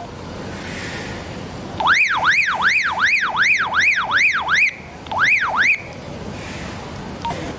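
Baofeng UV-5R handheld radio's alarm function sounding through its speaker: a loud siren-like tone sweeping up and down, about three sweeps a second, for roughly three seconds, breaking off and giving two more sweeps before it stops as the CALL button is held again. A short key beep follows near the end.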